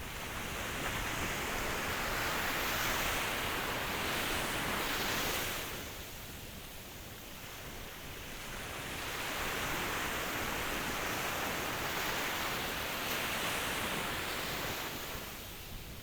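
Ocean surf: waves washing in as two long swells of noise, the first easing off about six seconds in and the second fading near the end.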